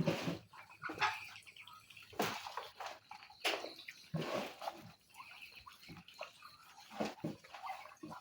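A group of ducks feeding on vegetables: irregular quick wet clicks and splashes of their bills dabbling in the food and water.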